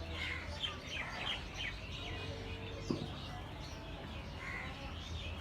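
Small birds chirping in a string of short, quick calls over a low steady background hum, with a single sharp click about halfway through.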